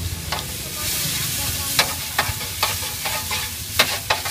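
Noodles, egg and bean sprouts sizzling in a large shallow wok, with a metal spatula scraping and clacking sharply against the pan about half a dozen times as the food is stir-fried.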